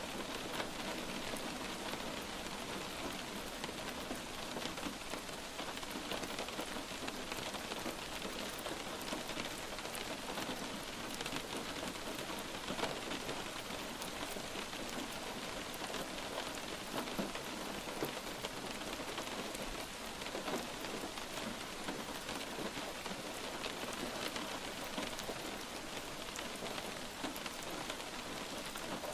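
Light rain falling steadily on a surface, an even hiss of rain with scattered individual drop ticks.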